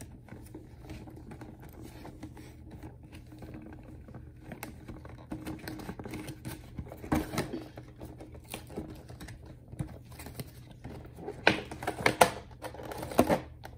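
Fingers working at a cardboard figure box: irregular small clicks, taps and scrapes on the card as the flaps are pried open. A burst of louder knocks and rustles comes about seven seconds in, and more near the end as the box is tipped over.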